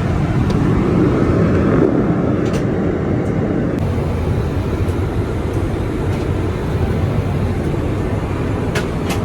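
Steady, loud rumble and rush of a moving vehicle heard from inside, with a couple of faint clicks near the end.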